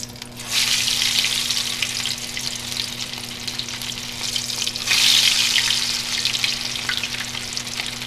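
Tuna cakes sizzling in shallow hot oil in a frying pan. The sizzle swells as one cake is lowered in about half a second in, and again as a second cake goes in about five seconds in.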